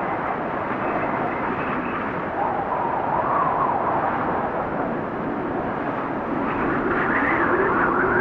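Wind blowing steadily, a rushing noise with a wavering whistle that drifts and rises in pitch near the end.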